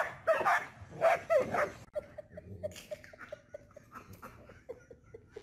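Dogs barking, a few loud barks in the first two seconds. Then fainter, quick, evenly repeated puppy noises as a small dog and a puppy tug a toy between them.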